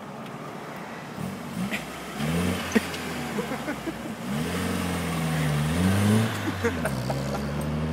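Opel Corsa's petrol engine revving up and falling back several times as the car moves off. There is a sharp click about three seconds in.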